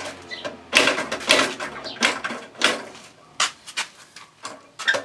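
Irregular knocks and clanks from work on a walk-behind tractor's half-axle assembly during reassembly, about eight in all, the loudest two about a second in.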